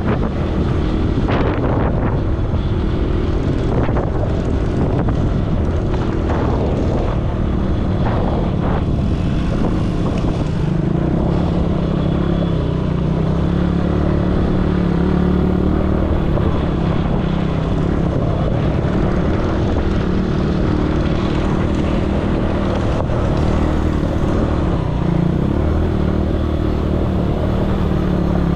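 ATV engine running steadily under way, a continuous drone whose pitch drifts slightly up and down.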